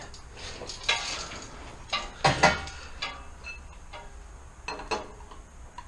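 Metal hand tools clinking and clanking, with a few sharp knocks and a short metallic ring after some of them.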